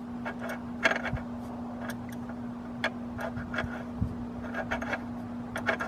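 Irregular light clicks and scrapes of an oil tank filler cap being turned by hand, not catching its thread, over a steady low hum.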